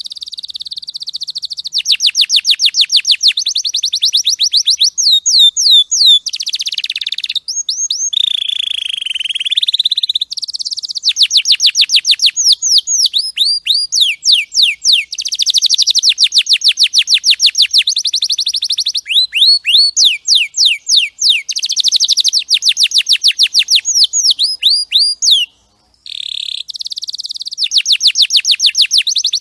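Domestic canary singing a long, loud song of fast high trills, each made of many quick repeated sweeping chirps, broken by a few held steady notes. The song pauses briefly near the end, then resumes with another trill.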